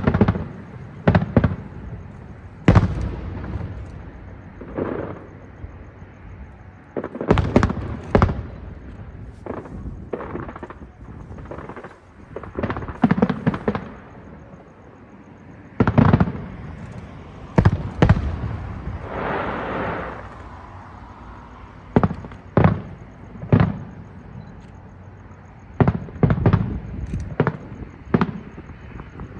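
Aerial fireworks shells bursting high overhead: sharp booms at irregular intervals, sometimes in quick clusters, with a stretch of crackle about two-thirds of the way through.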